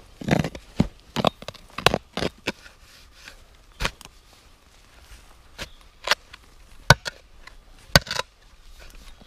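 Shovel blade chopping into forest soil, a string of irregular sharp strikes, close together over the first couple of seconds and then spaced out, with two louder strikes near the end.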